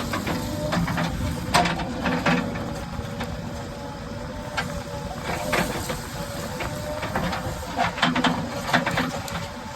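JCB 3DX backhoe loader's diesel engine running steadily, with a scatter of sharp metallic knocks from the machine working, loudest about one and a half seconds in and around eight to nine seconds in.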